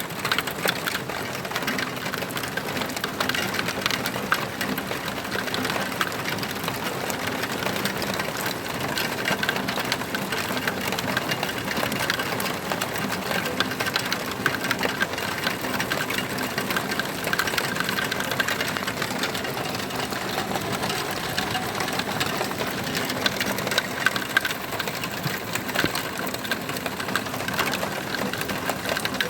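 Heavy rain pattering densely and steadily on a hard surface, a continuous crackle of fine drops, with a faint steady low hum underneath.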